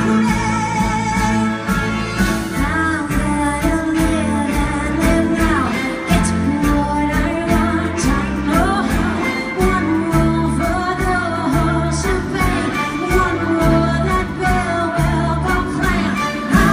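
A woman singing a show tune live, belting over a full band with drums, guitar and piano, amplified through the concert sound system.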